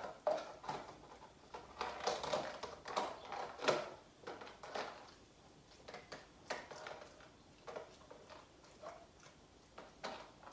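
Close-up eating sounds: chewing and mouth noises of someone eating, mixed with irregular clicks and crinkles from a clear plastic food container being handled. The clicks come thick and fast for the first few seconds, then thin out to scattered ones.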